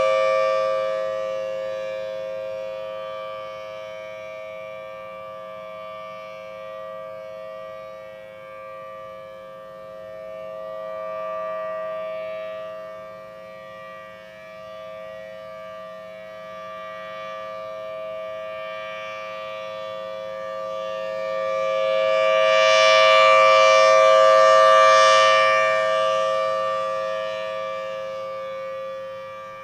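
Federal Signal Thunderbolt 1000T outdoor warning siren sounding a steady two-note chord for its monthly test. The sound fades after the start, then swells loud again a little past two-thirds of the way through and fades once more as the rotating horn sweeps past.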